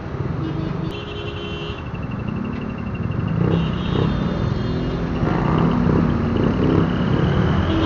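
Motor scooter engine running at low speed in slow, dense traffic, its pitch shifting with the throttle and growing a little louder in the second half. Thin high steady whines come and go above it.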